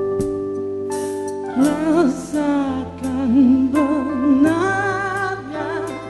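Band music with sustained backing chords. A vocalist comes in about one and a half seconds in, holding long notes with a wide vibrato.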